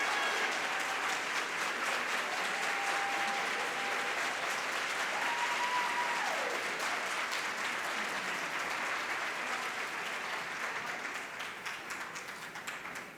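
Audience applauding after an a cappella chorus's held final chord, which ends just as the applause begins. The applause fades away near the end.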